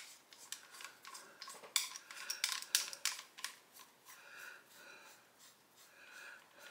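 Faint metallic clicking and scraping as an Armalite AR-7 .22 survival rifle's barrel and receiver are handled, a quick run of clicks over the first three seconds or so, then only faint rustle.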